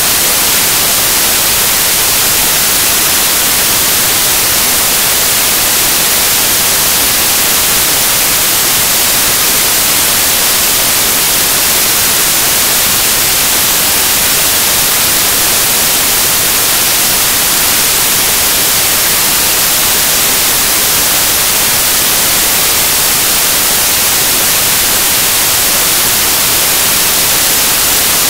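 Loud, steady static hiss, strongest in the treble, with no speech or other events: noise from a corrupted recording.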